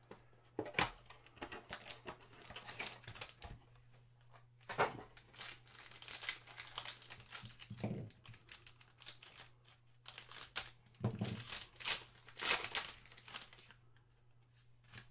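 Foil trading-card pack crinkling and tearing open as it is handled, in three irregular bouts of crackling.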